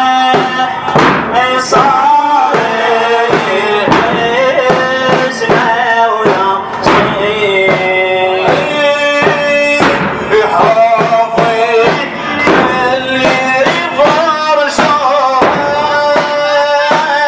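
Male voices singing a Shia Muharram mourning chant (latmiya) over a steady percussive beat.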